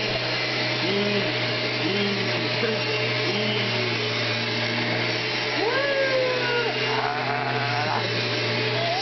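Vacuum cleaner running steadily, with its motor hum and rush of air. Short rising-and-falling vocal sounds, about a second apart, sit over it early on, and a longer sliding call comes about six seconds in.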